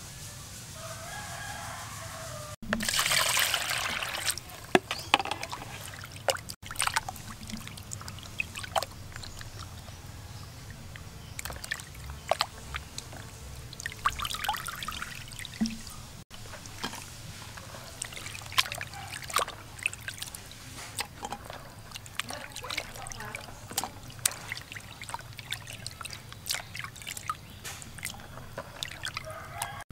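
Water splashing and dripping as hands rinse cow brains in a plastic basin of water. A few seconds in, a loud rush of pouring water lasts about two seconds. After that come scattered small splashes and drips.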